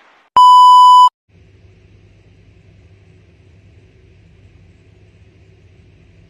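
A loud, clipped electronic beep at a single high-pitched tone lasting under a second, then a faint steady low hum.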